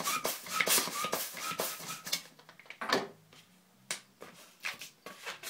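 A white 260 latex modelling balloon being inflated with a hand pump: a quick series of short air strokes with brief rubber squeaks over the first two seconds, then a single sharp stroke and quieter handling of the balloon.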